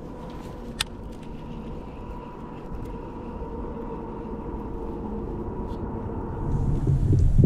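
Low, steady rush of wind and water around a fishing kayak, with a faint steady hum under it and a single sharp click about a second in; the rush grows louder near the end.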